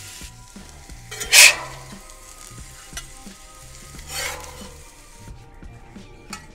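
Beef rump steak sizzling on a hot gas grill's griddle plate as it is drawn across it, with a loud surge of sizzle about a second and a half in and a smaller one about four seconds in, over a steady frying hiss that stops about five seconds in.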